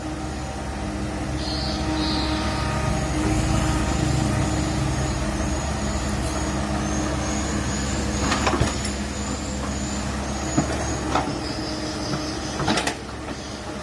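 Komatsu PC130 hydraulic excavator's diesel engine running steadily under digging load, louder in the first few seconds and easing about two thirds of the way through. A few sharp knocks sound over it, with a row of faint high squeaks in the middle stretch.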